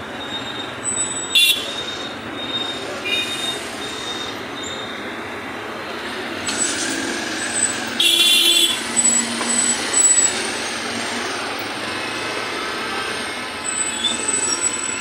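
Street traffic: a steady din of vehicles, with horns tooting a few times, about a second and a half in and around eight and ten seconds in.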